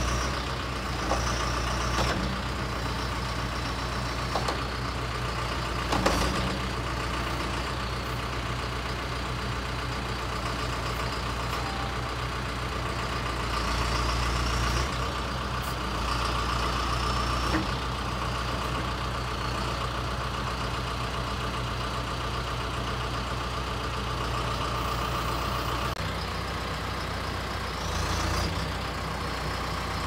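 2010 John Deere 410J backhoe loader's diesel engine running steadily while the backhoe boom and bucket are worked hydraulically. It pulls harder for a few seconds at a time, twice, as the hydraulics take load. A few knocks from the arm come through, the sharpest about six seconds in.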